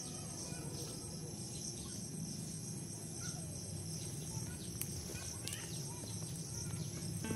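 Insects chirring steadily in a high, evenly pulsing chorus, with a few short bird chirps over it.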